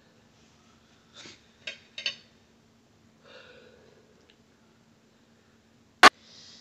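Quiet eating sounds at a table: a few soft breaths and faint small taps, then one sharp clink of a fork against a ceramic plate about six seconds in as noodles are lifted.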